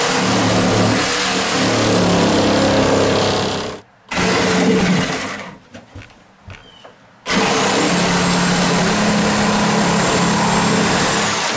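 Reciprocating saw cutting through a plywood wall to open a square window. It runs in three spells, stopping briefly about four seconds in and for nearly two seconds around the middle, where a few small knocks are heard.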